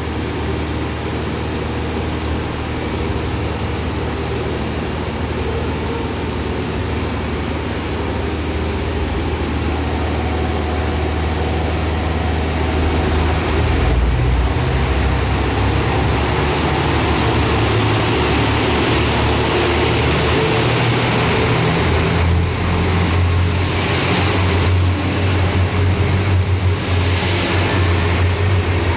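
Yufuin no Mori diesel multiple unit pulling out, its diesel engines running with a steady low hum that grows louder as the train comes past. Near the end there is a run of wheel knocks as the cars roll by.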